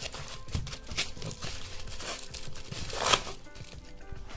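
Handling noise from a polystyrene-and-survival-blanket box: irregular crinkling and scraping as a GoPro is pushed into its foam slot, with one louder rustle about three seconds in.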